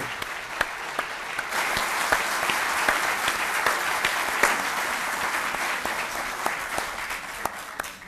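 Audience applauding. The clapping thickens about a second and a half in and dies away near the end.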